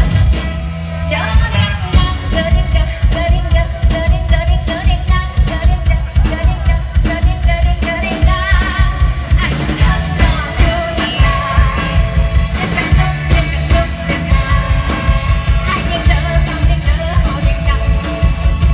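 Live Thai mor lam concert music played loud over a PA, a woman singing into a handheld microphone over a band with a heavy, steady, fast bass beat.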